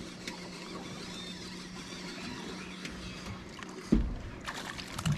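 Boat motor idling steadily with a low, even tone, then a sudden heavy thump about four seconds in followed by a few light knocks.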